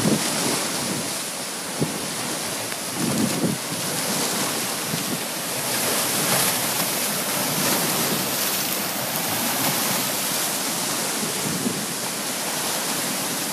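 Tropical-storm wind and choppy lake waves: steady rushing wind with waves splashing against a dock and a rocky shore. Gusts buffet the microphone now and then, most strongly about three seconds in.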